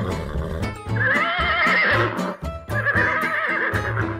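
A horse whinny sound effect with a quivering, wavering pitch, about a second in, over background music with a steady beat.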